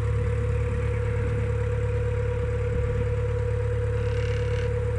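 Narrowboat's engine running steadily at low cruising speed, a constant low rumble with a steady hum above it.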